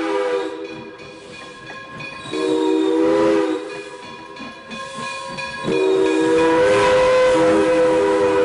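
Steam locomotive whistle blowing a chord of several notes in three blasts: one that cuts off just after the start, a short one about two and a half seconds in, and a long one from about six seconds in. Between the blasts there is steam hiss and the noise of the passing train.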